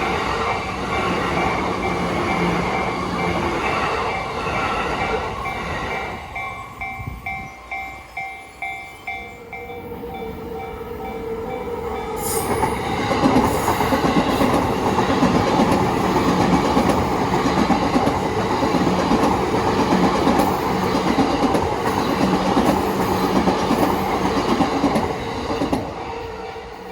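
Japanese level-crossing bell ringing in a quick, even ding, about two strokes a second. About ten seconds in, a JR East E235-series Yamanote Line train approaches; its wheels and running gear swell to a loud, steady passing noise and fall away near the end, with the crossing bell still sounding underneath.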